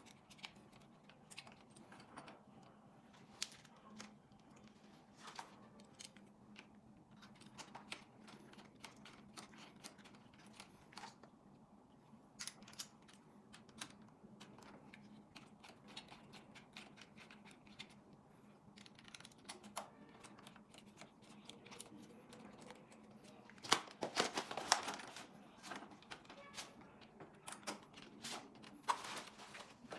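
Small metallic clicks and ticks of a folding hex-key multi-tool and handlebar fittings being handled while the stem bolts are worked, scattered and irregular, with a busier clatter near the end. A faint steady hum sits underneath.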